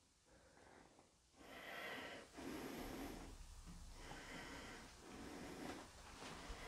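A person breathing softly close to the microphone: several slow, faint breaths in and out.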